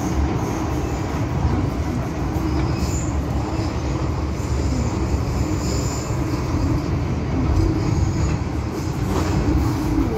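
Metro-Cammell M-Train electric multiple unit running between stations, heard from inside the car: a steady rumble of wheels and running gear, with faint high wheel squeals coming and going.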